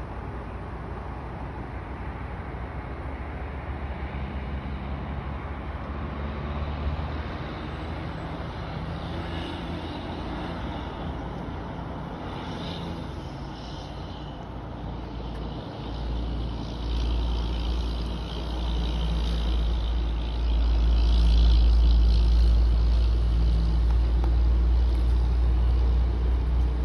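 Outdoor ambience: a steady low rumble that grows clearly louder in the second half, with faint scattered higher sounds over it.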